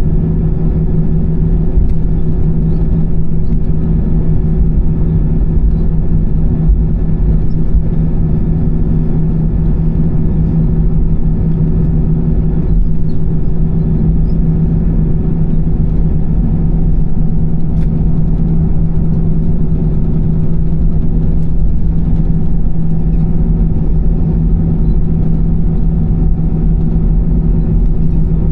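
Steady cabin noise inside an Airbus A320-214 with its CFM56 engines running: a deep, even rumble with a constant low hum that does not change in pitch.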